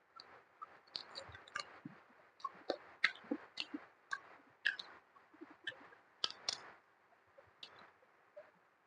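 Close-miked eating sounds: irregular wet mouth clicks, lip smacks and chewing as food is eaten, thinning out near the end.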